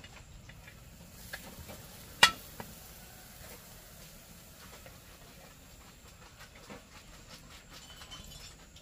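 A single sharp knock about two seconds in, with a few fainter clicks and taps scattered over a quiet background.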